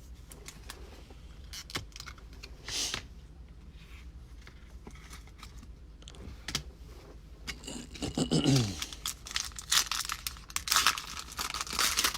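Foil wrapper of a trading-card pack being torn open and crinkled, with scattered clicks of cards being handled. The tearing and crinkling grows denser over the last few seconds.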